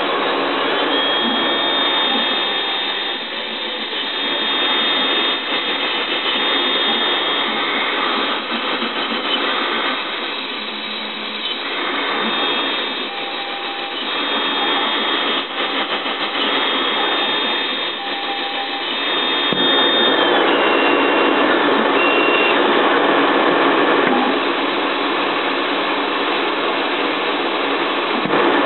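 Dental CAD/CAM milling machine's high-speed spindle running while a small end mill cuts a PMMA disc. The steady machining noise swells and dips every few seconds as the tool moves. A thin high tone stops about twenty seconds in, and after that the noise is louder and more even.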